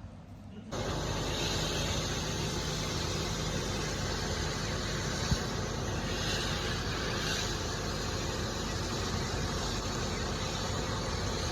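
Kärcher OC3 portable low-pressure washer running, its small pump humming under a steady hiss of water spraying onto an air conditioning indoor unit's coil. It starts about a second in and runs evenly.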